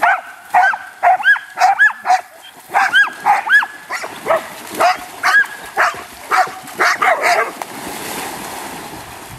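A pack of dogs barking rapidly and high-pitched, about two to three barks a second, sometimes overlapping. The barking stops after about seven seconds, leaving the rush of dogs splashing through shallow water.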